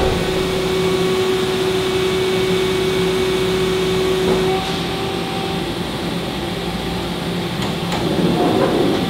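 Steady hum of the idle Makino horizontal machining centre's pumps and fans. A steady tone stops about halfway through and a higher one takes its place. Near the end there is a short rush of noise as the enclosure's sliding door is worked open.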